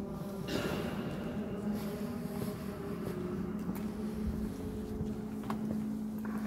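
Footsteps of people walking through a stone hall and starting up a wooden staircase, with a couple of sharp knocks on the treads about five seconds in, over a steady low hum.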